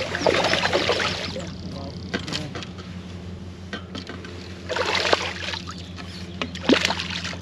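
Hooked fish splashing at the water's surface as it is played on a pole, in bursts near the start, about five seconds in and again near the end, over a steady low hum.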